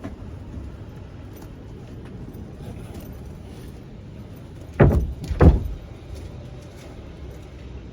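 Two heavy thuds about half a second apart, about five seconds in, as a hinged van bed board on gas struts is tried out and knocks against its frame.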